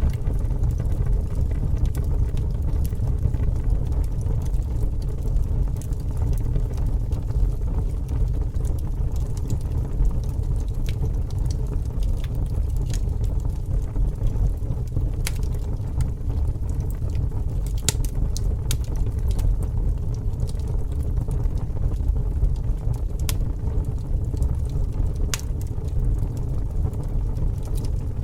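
Fire burning: a steady low rumble with sharp crackles and pops scattered irregularly through it.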